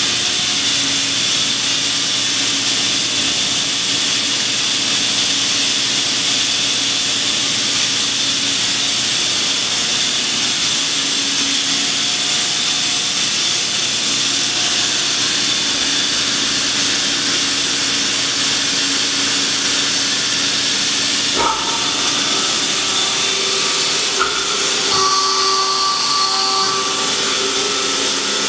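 The Strippit LVD PPEB 150/10 press brake's 20 hp hydraulic pump unit running steadily, a continuous hiss with a low hum and a higher whine. Two clicks come in the last third, and after them higher whining tones join in.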